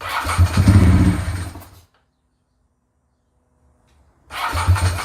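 Ducati 916's electric starter cranking its fuel-injected V-twin in two tries of about two seconds each, with silence between, the engine not catching: a hard-starting condition the owner first blamed on bad gas.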